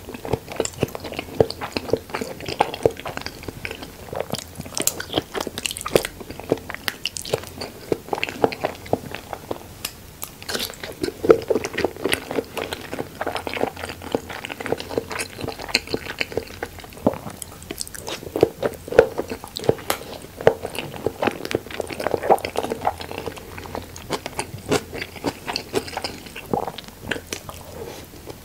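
Close-miked chewing and mouth sounds of a person eating big bites of raw salmon and salmon sushi: wet smacks and many small clicks throughout.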